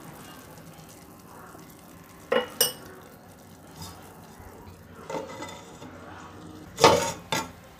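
Water bubbling at a steady boil in a clay pot, with two sharp clinks about two and a half seconds in. Near the end a stainless steel plate is set down on the clay pot as a lid, clattering twice, the loudest sound.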